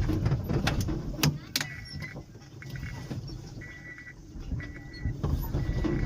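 Auto-rickshaw running along a rough road: a steady low engine and road rumble with sharp knocks and rattles from the body. A high steady tone comes and goes in short stretches from about one and a half seconds in.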